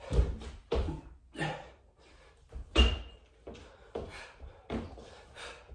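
Irregular thuds on the floor, about one a second, from a person doing push-ups and lunges, with heavy breathing between them. The strongest thud comes nearly three seconds in.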